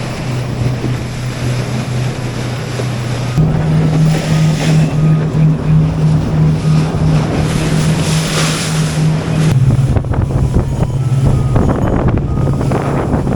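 Motorboat engine running under way, with wind buffeting the microphone and water rushing past the hull. The engine note steps up and grows louder about three and a half seconds in, then drops back near ten seconds.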